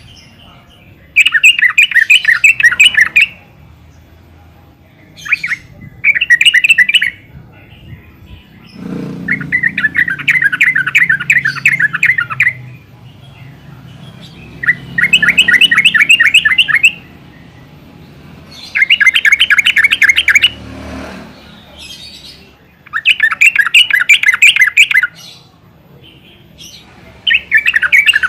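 Yellow-vented bulbul (Pycnonotus goiavier) giving its chattering call: bouts of rapid, evenly repeated notes, each one to three seconds long, coming back about every three to four seconds.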